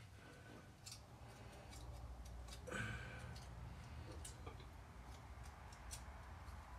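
Faint, scattered metallic clicks and light scraping of a feeler gauge blade being worked into the joint between a Caterpillar Sixty's water manifold and the engine to check the gap, over a low steady hum.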